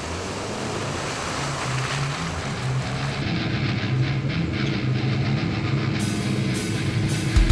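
A 4WD's engine and tyres working through mud, with rock music coming in underneath on a stepping bass line; about three seconds in the vehicle sound drops away and the music carries on alone.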